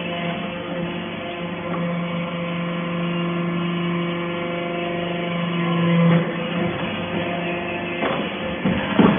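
Hydraulic scrap-metal baler running: a steady machine hum with several pitched tones, its low tone louder for a few seconds in the middle, then sharp clunks a few times near the end.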